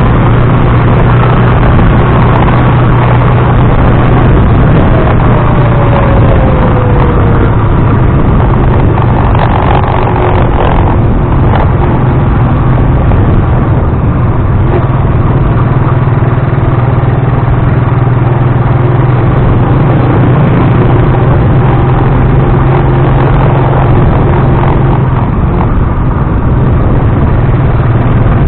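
Motor tricycle running steadily on the road, with a low engine hum under a loud, constant rumble and rattle of vibration and road noise picked up by an action camera's microphone.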